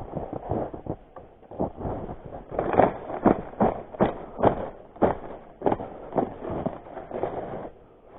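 Footsteps crunching through snow, about two steps a second, louder in the middle of the stretch.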